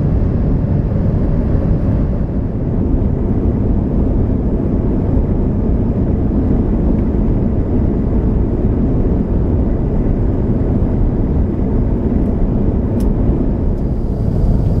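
Steady cabin noise inside an Airbus A350 airliner in descent: an even, low roar of engines and rushing air. A small click sounds near the end.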